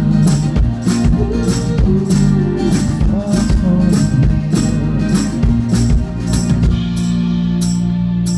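Live pop-rock band playing an instrumental passage: guitars, bass and drums with a steady beat of about two strokes a second, easing off near the end.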